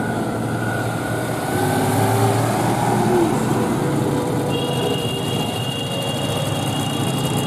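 Citroën 2CVs driving slowly past, their air-cooled flat-twin engines running steadily. A steady high-pitched tone comes in about halfway through and holds.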